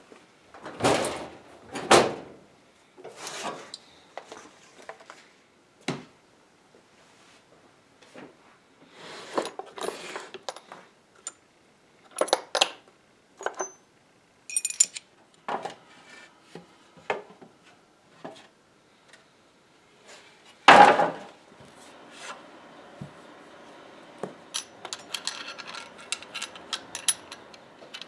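Workshop handling noise: small metal router fittings clinking and rattling as they are rummaged through in a wooden drawer, among scattered knocks and clunks. The loudest clunk comes about two-thirds of the way in, and it ends in a run of quick small clicks.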